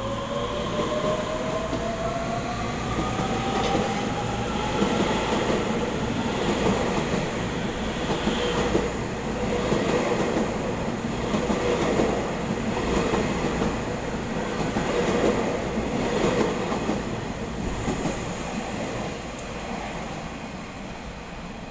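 Taiwan Railways EMU3000 electric multiple unit accelerating out of an underground station. Its traction motors give a rising whine over the first few seconds, then the passing carriages make a steady rumble with wheels clicking over rail joints, fading near the end as the train pulls away into the tunnel.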